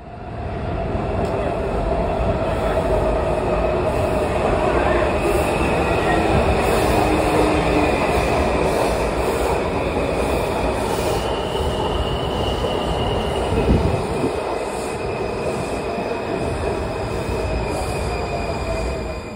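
Washington Metro subway train running along the platform: a steady rail rumble with high, sustained wheel-squeal tones. A single clunk sounds about fourteen seconds in.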